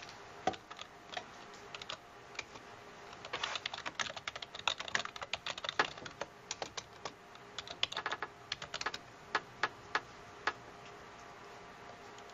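Typing on a computer keyboard: quick runs of keystrokes through the middle, then a few single, spaced-out clicks near the end.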